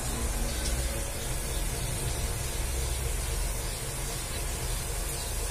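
Steady sizzling hiss of bean sprouts and beef adobo cooking in an aluminium wok, the sprouts having given off their own liquid, over a low steady rumble.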